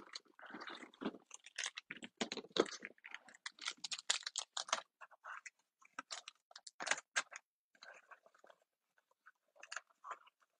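Plastic snack wrappers crinkling and a cardstock box rustling as wrapped cookies are packed into it and the lid is closed: a quick run of small crackles and clicks that thins out to a few scattered ticks in the last few seconds.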